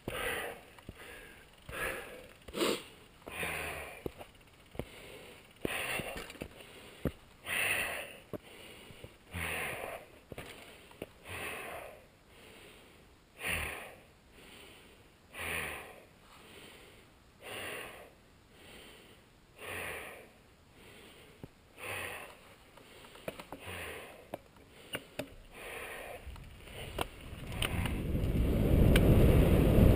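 Mountain biker breathing hard while pedalling, one breath about every second. About three seconds from the end, wind buffeting the microphone builds up loud as the bike picks up speed.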